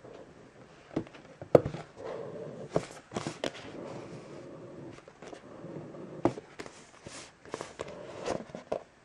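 Hands handling an iPad mini's cardboard box and working its snug lid off: card rubbing and scraping against card, with scattered taps and knocks. The sharpest knock comes about one and a half seconds in.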